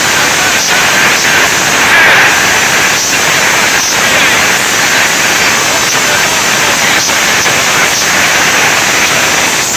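Football stadium crowd noise from a match broadcast, loud and steady, with a voice faintly in it.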